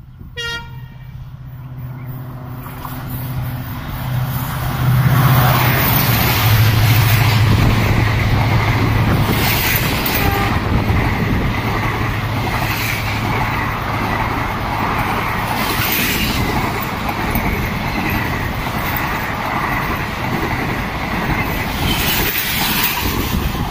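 A short blast of a diesel locomotive's horn, then the diesel engine's drone building as the locomotive passes at speed about five seconds in. The express's coaches follow, rushing past with a steady rumble of wheels on rail and a few sharp clacks.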